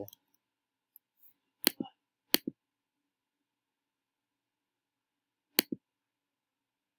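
Three sharp computer mouse clicks, each a quick press-and-release pair, about two seconds in, a moment later, and again near the end. The clicks are advancing presentation slides, with near silence between them.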